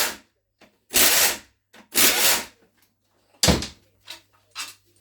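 Power tool run in short bursts, twice about a second apart, undoing bolts on a gearbox casing, then a sharp metallic knock about three and a half seconds in, followed by light clicks of parts being handled.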